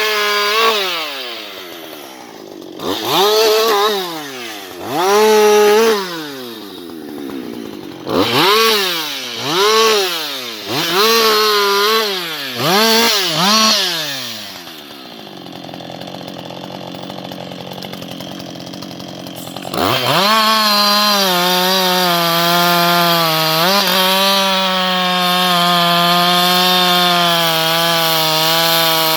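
Husqvarna 560XP chainsaw's two-stroke engine blipped up and down about eight times, dropping back between revs. It then idles for a few seconds before being opened up and held at steady high revs, with one brief dip.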